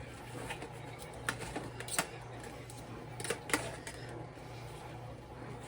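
Knife cutting up a baked breaded chicken fillet, with a few sharp clicks as the blade strikes the surface underneath, over a steady low hum.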